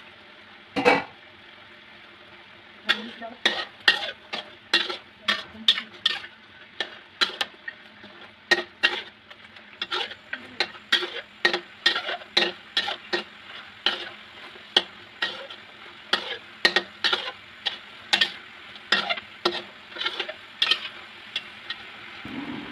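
A metal spatula scrapes and knocks against a wok, about two strokes a second from about three seconds in, as it stirs pork ribs in sauce. The sweet and sour sauce sizzles steadily underneath. One loud clank of metal comes about a second in.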